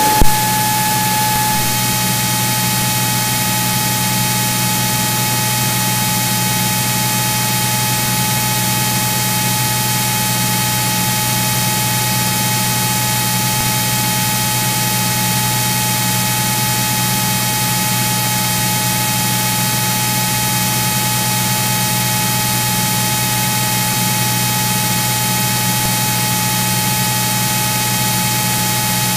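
Cirrus SR22 cockpit noise on the recorded radio and intercom audio: a steady hiss with a low hum and a steady high-pitched tone, unchanging throughout. A brief click comes at the very start.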